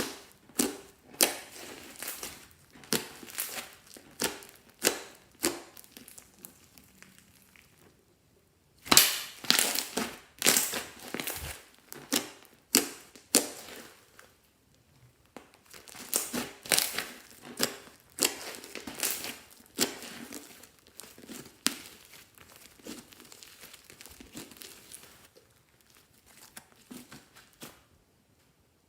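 Crackling, crinkling handling noises in quick irregular clusters of sharp crackles, pausing briefly about eight and fourteen seconds in and dying away near the end.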